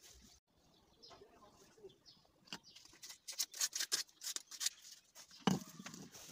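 Small clicks and taps of metal and plastic parts of a powder fire extinguisher being handled on a wooden table, with one dull thump about five and a half seconds in as a plastic piece is set on the open bottle's neck.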